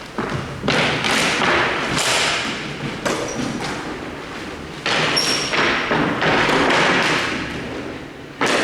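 Ice hockey play: a series of sudden thuds and scrapes, each fading away over about a second.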